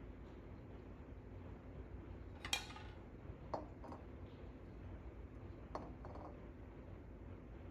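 A few light, sharp clinks over a faint steady hiss. The first, about two and a half seconds in, is the loudest and rings briefly, and softer ones follow in pairs.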